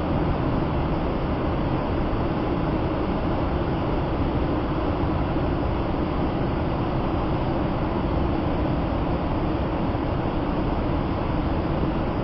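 Steady roar of a large waterfall, Tinap Saitar, water pouring and crashing continuously without change.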